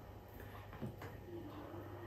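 Faint sounds of a metal ladle dipping into broth in a stainless steel soup pot, with one soft knock a little under a second in.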